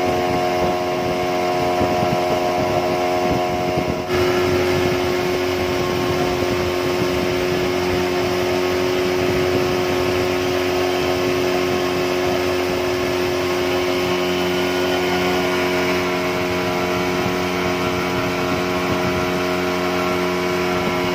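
Outboard motor of a small boat running steadily at a constant cruising speed, with a brief dip about four seconds in.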